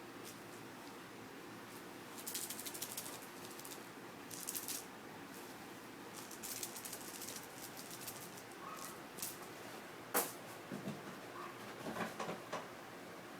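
Kitten playing with a small toy: bursts of light, rapid clicking and rattling, with a sharper tap about ten seconds in.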